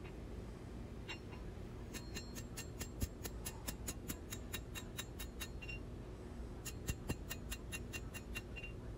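Rapid, light metallic ticking, about five clicks a second, in two runs separated by a short pause.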